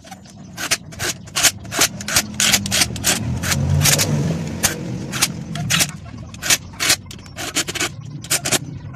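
Cordless impact driver tightening motorcycle crankcase bolts: the motor whirs steadily, broken by many short rattling bursts of impacts a few tenths of a second apart.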